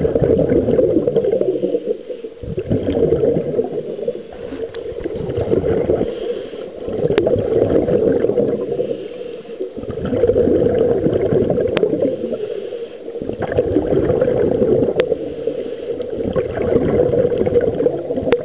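Scuba regulator breathing heard underwater: exhaled bubbles rush and gurgle in loud bursts every few seconds, with quieter gaps between breaths. A few sharp faint clicks fall in the middle.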